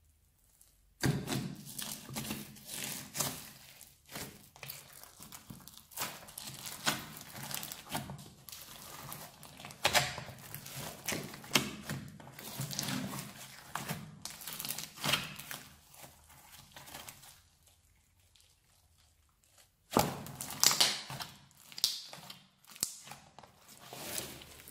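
Hands squishing and folding a large mass of old slime mixed with foam clay, beads and glitter, giving a sticky squishing with many small crackles. It starts about a second in and pauses for a couple of seconds about three-quarters of the way through before starting again.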